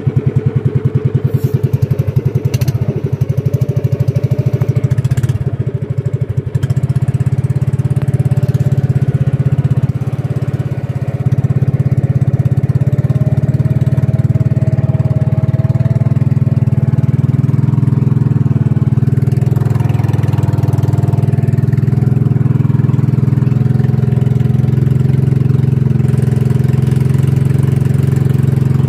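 Outrigger boat's engine running steadily under way, a loud, fast, even chugging.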